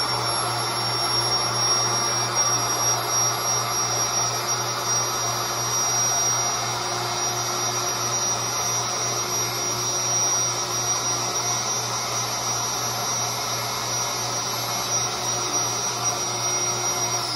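Electric air pump running steadily with a motor whine, inflating a large inflatable pool.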